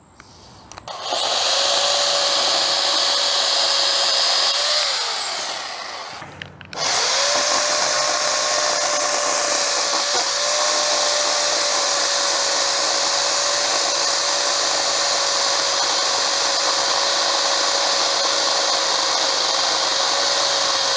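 Sun Joe SWJ803E 8-amp electric pole chainsaw running with a steady high whine while cutting an overhead branch. It starts about a second in, winds down with falling pitch near five seconds, then starts again about seven seconds in and runs steadily.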